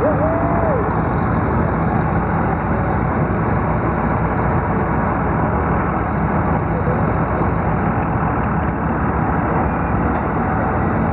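Engine of an antique green John Deere two-cylinder tractor running steadily at idle while it sits hitched to the pulling sled.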